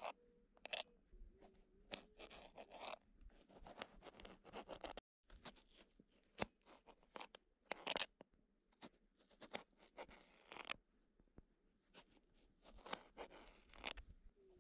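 Kitchen knife slicing through tomatoes and knocking on a cutting board: a quiet run of short, irregular cuts and taps, with a few longer scraping strokes.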